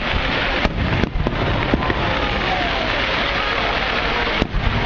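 A fireworks display going off: a dense, steady crackle broken by several sharp bangs in the first two seconds and another near the end.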